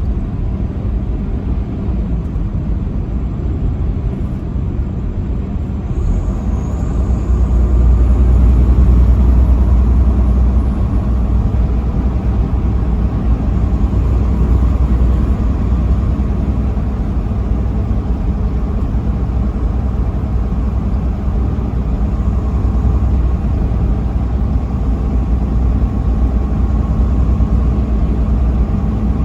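Steady road and engine rumble of a vehicle driving on a highway, deep and heavy, growing louder about six to eight seconds in.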